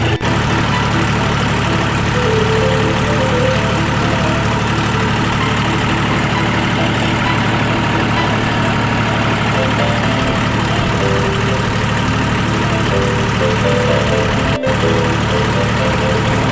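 John Deere tractor engine running steadily while the tractor is driven, heard close up from the driver's seat. The sound breaks off for an instant near the end.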